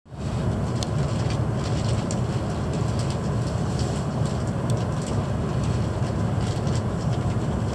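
Steady low rumble inside an E7/W7-series Hokuriku Shinkansen passenger car as the train pulls out of the station, with a few faint light clicks.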